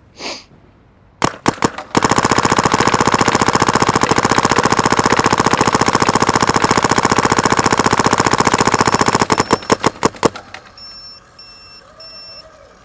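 SP Shocker XLS electronic paintball gun firing: a few single shots, then a fast, unbroken string of shots for about seven seconds that thins to scattered shots and stops as the hopper runs empty.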